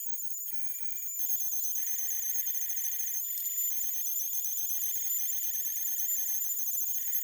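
Shrill, very high electronic tones stepping up and down in pitch in a repeating pattern, alarm-like, with a band of hiss below them that swells about a second in.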